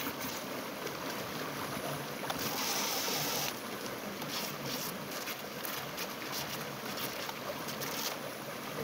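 Steady rush of water from a river current, with the small electric motors of a mini RC speed boat whining faintly and high as the boat runs back in against the current.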